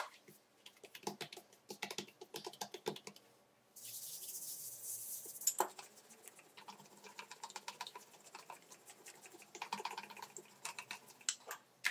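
Hands smoothing a large, thin sheet of dough on a countertop, then a wooden rolling pin rolling over it, with a run of rapid light clicks and taps. A short hiss comes about four seconds in.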